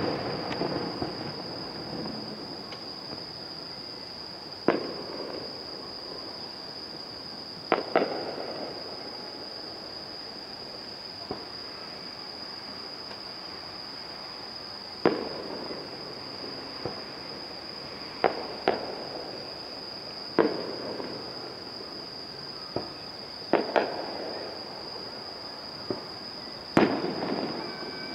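Aerial firework shells bursting: a sharp bang every few seconds, with two in quick succession around the middle. Several bangs are followed by a rolling echo.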